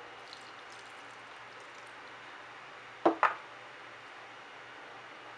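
Broth poured from a pot into a ceramic bowl of sautéed fiddlehead ferns, a faint liquid splashing in the first couple of seconds. About three seconds in come two sharp clacks in quick succession, kitchen tongs knocking against the bowl.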